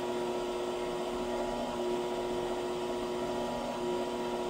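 Electric motor of a metal-shaping machine running steadily: a constant mechanical hum with a few steady tones and no hammer strikes.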